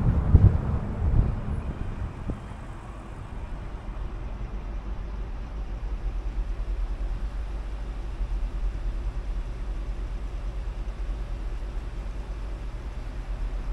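Car driving: a steady low rumble of road and engine noise, with a louder rush of noise in the first second or so that dies away.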